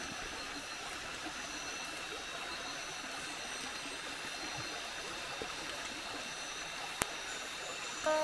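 Night tropical-forest ambience: a steady hiss with the even, high, continuous drone of insects, broken by a single sharp click about seven seconds in.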